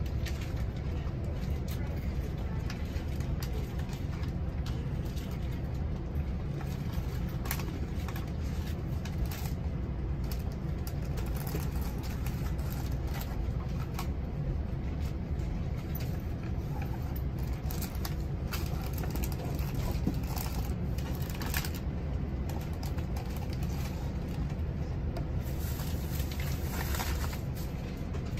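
Inside an Amtrak Pacific Surfliner passenger coach: a steady low rumble with scattered clicks and rattles.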